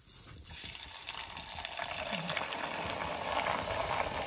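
Hot oil sizzling and crackling as a dry piece of homemade rice snack is dropped into it to fry and puff up. The sizzle starts just after the piece goes in and builds within the first second, then holds steady.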